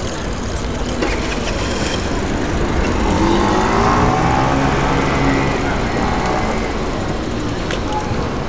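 A motor vehicle's engine passing close by, rising in pitch about three seconds in and holding for a few seconds before fading. Underneath is a steady low rumble of wind on the microphone.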